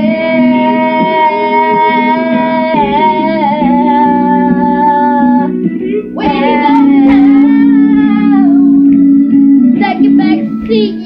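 A song with a sung vocal over guitar, the voice holding long notes.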